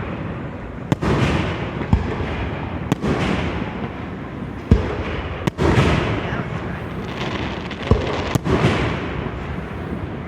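Aerial fireworks display: about seven sharp bangs of shells bursting at uneven gaps of one to two seconds, over a continuous crackle and rumble of further bursts.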